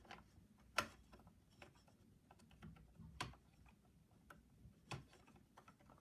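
Faint, scattered clicks and taps of a RAM module being handled and set into the iMac's memory slot, with three sharper clicks about one, three and five seconds in.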